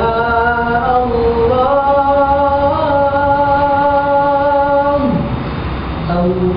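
Young men's nasyid group singing a cappella in harmony, holding long sustained notes that step up in pitch twice; about five seconds in the low part falls away and the voices dip briefly before the next phrase begins.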